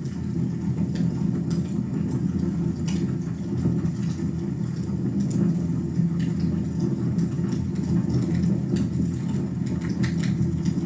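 Wood fire in a fireplace burning with a steady low rumble and scattered sharp crackles and pops.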